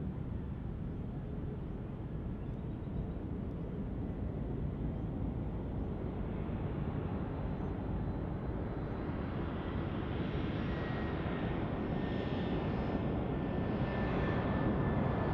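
Airbus A320-200 jet airliner on final approach, its engines a low, steady rumble that grows gradually louder, with a steady high whine coming in over the second half.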